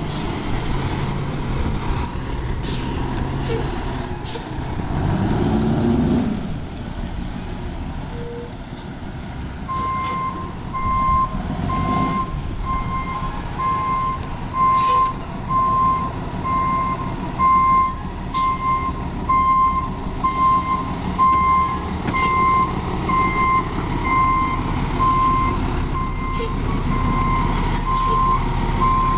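Fire engine's diesel engine running as the truck drives up and manoeuvres. From about ten seconds in, its reversing alarm beeps steadily about once a second as it backs into its station.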